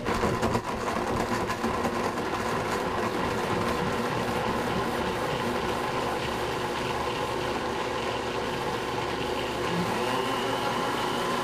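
Blendtec Designer 725 blender running its smoothie preset on frozen fruit and almond milk. The motor starts suddenly and runs steadily, and its tone changes near the end.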